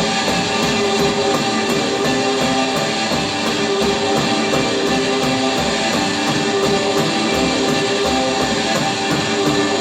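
Live rock music: an instrumental stretch with electric guitar sustaining steady droning notes over a regular beat, no vocals.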